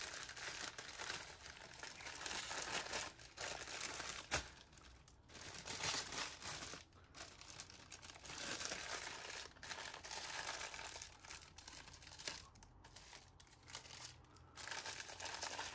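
Plastic baggie crinkling and rustling as it is handled and packed away, in irregular spells with short pauses.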